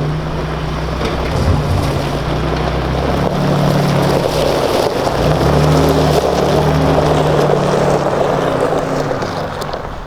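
An engine running at a steady pace under heavy wind noise on the microphone, its low drone dropping out and coming back a few times.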